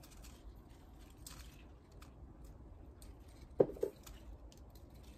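Faint rustling of tomato plant foliage as green tomatoes are picked by hand, with a sharp click about three and a half seconds in and a softer one just after.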